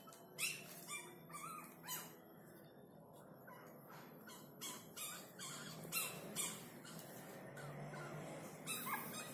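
Newborn puppies squealing, with about ten short, high-pitched squeaks and cries scattered through.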